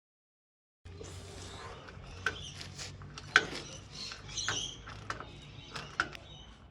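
Scattered light clicks and knocks over a low steady hum, starting about a second in.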